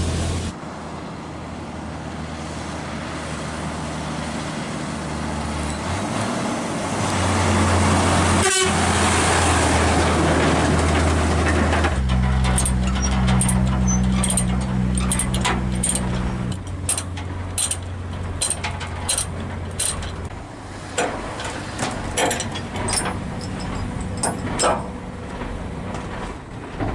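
Hino 500 truck's diesel engine running as the low-bed truck moves off. From about halfway through comes a run of sharp metal clanks and chain rattles as a steel tie-down chain on the trailer deck is worked and tightened with a lever binder.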